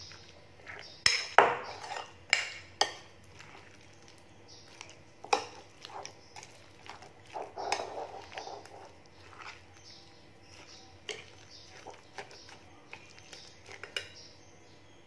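Metal spoon stirring thick vegetable fritter batter in a glass bowl, clinking sharply against the glass every so often, with softer wet stirring sounds in between. The clinks are loudest and closest together in the first few seconds.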